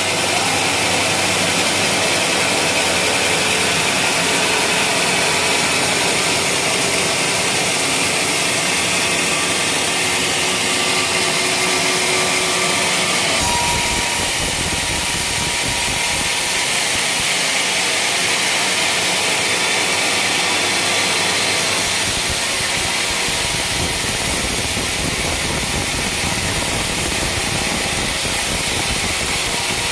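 Engine-driven sawmill running steadily while it saws a teak beam. The sound deepens about 13 seconds in and shifts again near 22 seconds.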